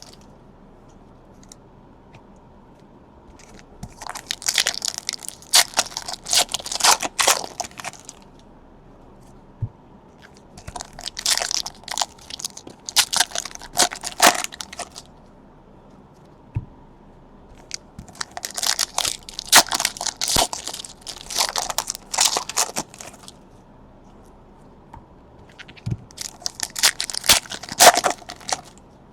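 Trading-card pack wrappers crinkling and tearing as packs are ripped open and handled, in four crackly bursts separated by quiet pauses.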